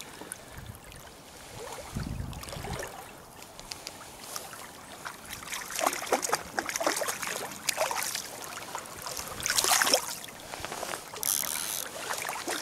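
Irregular water splashing and sloshing of a hooked lenok being drawn in and landed in a river, over the hiss of running water, with a dull low thump about two seconds in.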